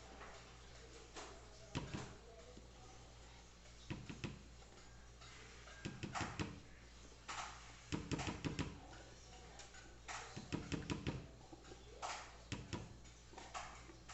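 Kitchen utensils and containers being handled: bursts of quick clicks and knocks about every two seconds, loudest about eight seconds in and again around eleven seconds, over a low steady hum.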